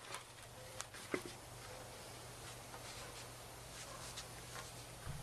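Faint scattered clicks and taps of hands fitting a CB whip antenna onto its mount, over a low steady hum.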